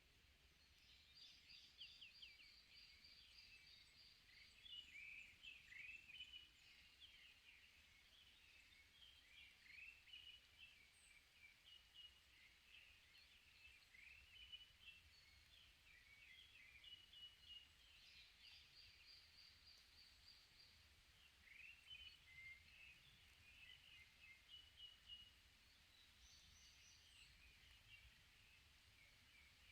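Faint birdsong from several songbirds in a forest chorus: many short high chirps, trills and quick rising notes overlapping one another, over a faint low background hum.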